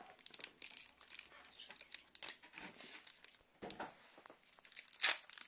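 Foil Pokémon booster pack wrapper crinkling in the hands as it is torn open: an irregular run of crackles, with one louder sharp crackle near the end.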